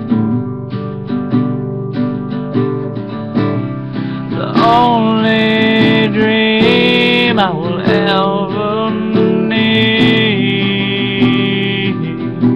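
A man singing to his own strummed acoustic guitar. The guitar chords run throughout, and the voice comes in about a third of the way through with a long, wavering sung line that ends a few seconds before the close.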